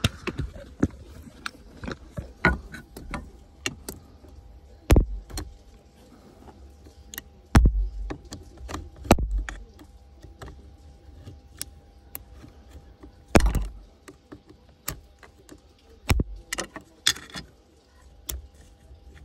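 Irregular clicks, rattles and knocks of hands working at plastic and metal parts of the gearshift linkage while prying off a gearbox cable end clip, with a few heavier thumps.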